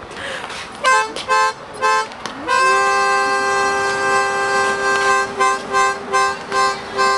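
Two-tone car horn honking: three short honks, then one long held honk of nearly three seconds, then a rapid string of short honks.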